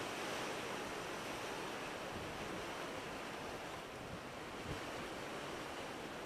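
Sea waves breaking and washing over low rocks, a steady surf wash with no single loud crash.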